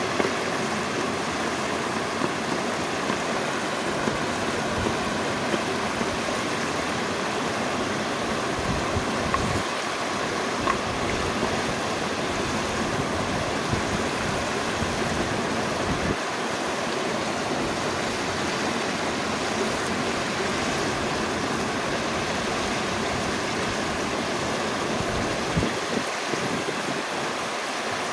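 Mountain stream rushing steadily over rocks, with intermittent light knife chops on a wooden chopping board, most regular in the first few seconds.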